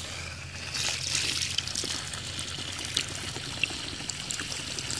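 Water from a garden hose running in a steady stream and splattering onto grass, louder for a moment about a second in, with a few sharp ticks.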